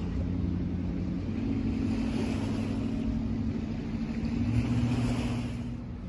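A motor engine running steadily with a low hum, swelling a little about three-quarters of the way through and easing off near the end.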